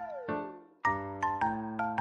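Background music of bright, bell-like keyboard notes. A falling glide sounds just after the start, then after a short gap the notes pick up again.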